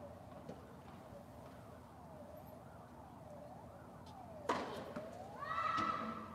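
A siren goes in a fast up-and-down yelp, then switches near the end to a long rising wail that slowly falls away. About four and a half seconds in, a single sharp tennis-ball strike off a racket is the loudest sound, with a fainter hit about half a second in.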